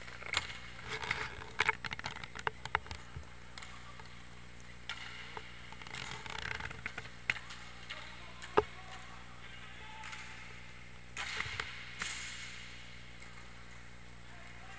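Inline hockey play close to the goal: sticks clacking, the puck being hit and skate wheels rolling on the plastic rink floor, in scattered clusters of clicks and knocks. A single sharp crack a little past halfway is the loudest sound.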